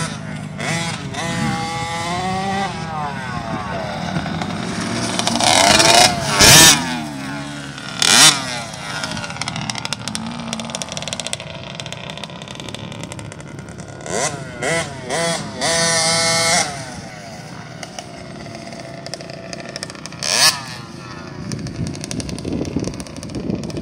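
Small two-stroke youth dirt bikes running around a motocross track, the engine pitch rising and falling as they rev up and shift. A few short loud bursts of noise cut across, about six and eight seconds in and again near the end.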